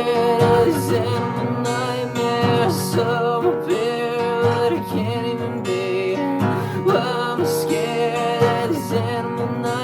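Grunge-style original song: strummed guitar chords with a sung melody over them.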